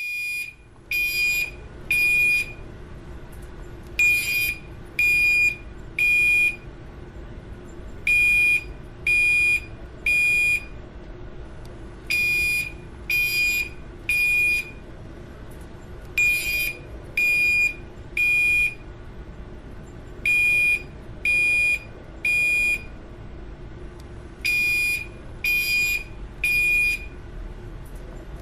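Fire alarm sounding the temporal-three evacuation signal: groups of three loud, high-pitched beeps about a second apart, each group repeating every four seconds. A steady low hum runs underneath between the beeps.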